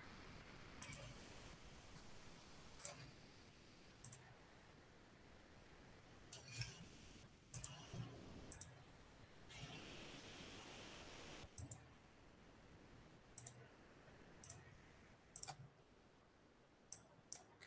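Faint computer mouse clicks at uneven intervals, some single and some in quick pairs (double-clicks), as menus and a file dialog are worked through.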